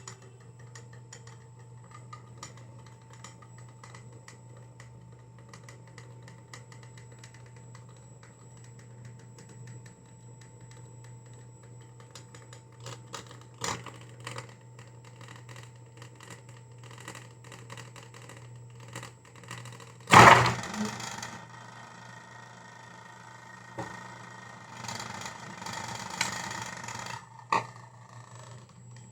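Small clicks and rattles of plastic and metal parts being handled and fitted back together in an opened massage gun, over a steady low hum. About 20 seconds in there is one loud knock, and later a short spell of clattering.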